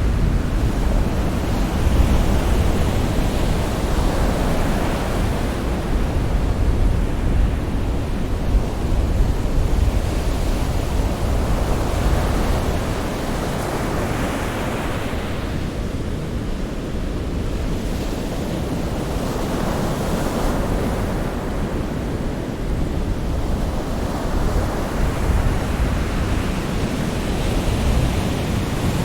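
Sea waves surging and washing onto a shore, a steady roar that swells and eases every several seconds.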